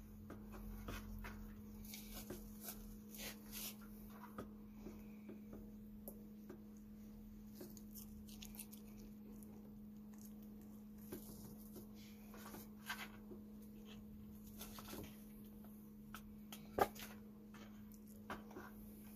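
Faint scattered clicks and soft crunches of a red fox chewing food close by, over a steady low hum, with one sharper click near the end.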